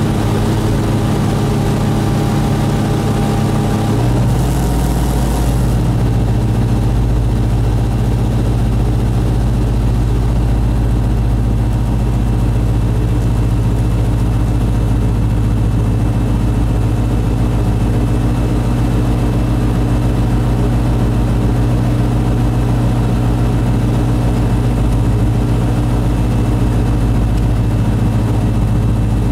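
A light aircraft's engine and propeller droning steadily, heard from inside the cockpit. The engine note shifts about four seconds in, with a brief hiss at the same moment.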